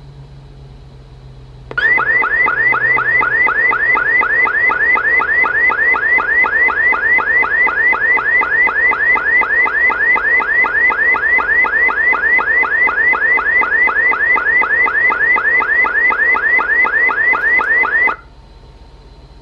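Amseco VSD-208 voice-driver alarm tone through a Simplex LifeAlarm speaker: a loud, fast-repeating rising sweep, about four sweeps a second. It starts about two seconds in and cuts off suddenly near the end.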